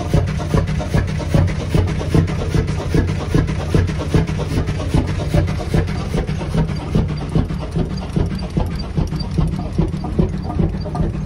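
100 hp Chicago Pneumatic two-stroke semi-diesel stationary engine running steadily, with a fast, even beat of firing strokes and mechanical clatter from its moving parts.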